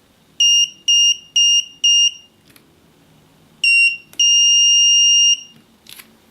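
S2C radio receiver's buzzer beeping: four short high beeps about half a second apart, the signal to release its button during a factory reset, then a short beep and a longer beep of about a second. Two faint clicks fall between and after the beeps.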